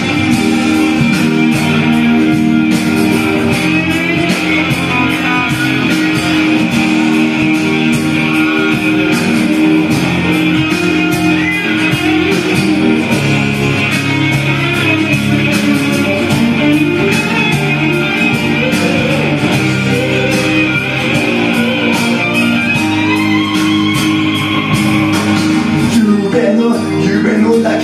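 Karaoke backing track playing an instrumental break of a pop song, led by guitar over a steady beat.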